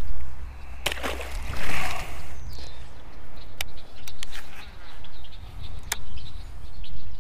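A cast fishing lure splashes down on the pond about a second in, followed later by a few sharp, separate clicks.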